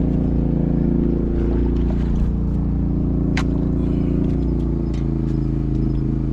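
Steady drone of the gigging boat's motor running at a constant pitch, with one short sharp click about halfway through.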